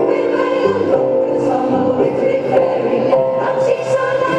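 Women's choir singing a pop song in several-part harmony, with hand claps along to the song in the second half.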